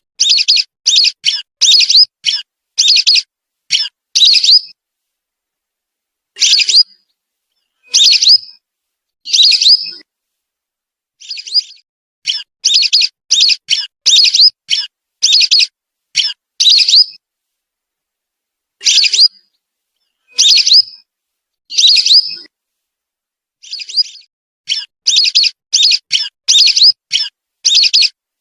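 Whistling duck (belibis) lure recording: short, high whistled calls in quick runs of three to eight, with pauses of about a second or two between runs.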